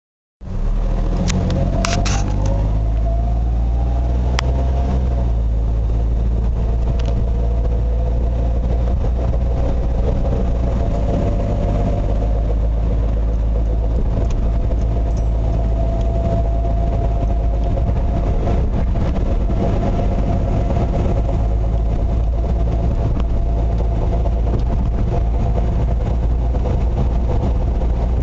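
1997 Suzuki Wagon R (CT51S) being driven: engine and road rumble with a whining tone that rises as the car gathers speed over the first few seconds, then holds steady. A few sharp clicks sound about a second or two in. This is the noise heard while driving that the owner takes for abnormal.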